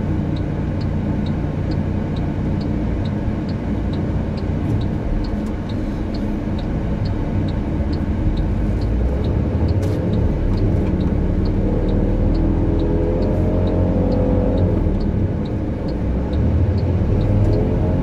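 Car engine running slowly, with a regular light ticking about two or three times a second. From about twelve seconds in, the engine note rises as it speeds up.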